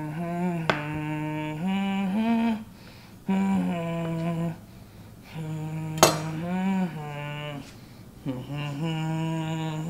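A man humming a tune in four long held phrases with short breaks between them. Two sharp clicks cut through it, one about a second in and a louder one a little past the middle.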